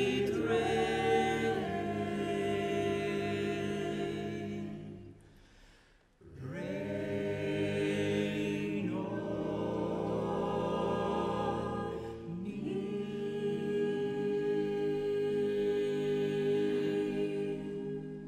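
A small mixed a cappella vocal group of men and women singing in harmony, in three phrases of held chords broken by a pause about six seconds in and a shorter one about twelve seconds in; no instruments.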